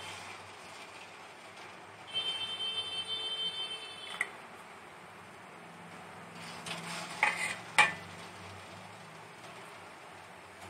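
Steel ladle scraping and clinking against a steel pot of sugar syrup, with a few sharp clinks about seven to eight seconds in, the last the loudest. A steady high whine of several tones sounds from about two seconds in for about two seconds.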